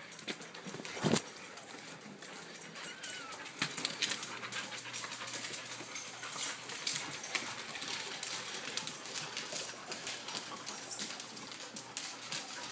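Dogs moving about, with a brief dog whimper and many scattered clicks and knocks; one louder knock about a second in.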